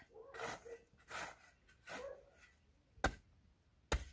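A long-handled spade scraping and digging into dry, loose earth: several scraping strokes, then two sharp strikes of the blade about a second apart near the end.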